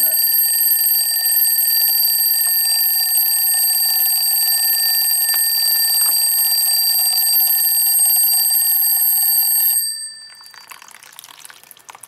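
Twin-bell alarm clock ringing continuously, rewired as a flood alarm: rising water has lifted its foam float and closed the trigger contact. The ringing cuts off suddenly about ten seconds in.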